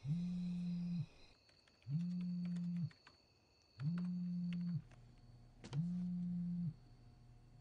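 Mobile phone on vibrate buzzing for an incoming call: four even buzzes of about a second each with shorter gaps between them, and a fifth starting near the end. Faint clicks of typing on a computer keyboard sound between the buzzes.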